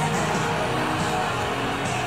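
Music with steady held notes.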